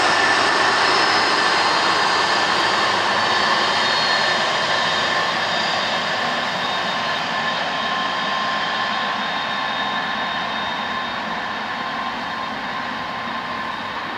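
McDonnell Douglas DC-10-30 freighter (FedEx MD-10) taxiing on its three General Electric CF6-50 turbofans at low power: a steady jet whine with high whistling tones over a broad rush, slowly fading as the aircraft moves away.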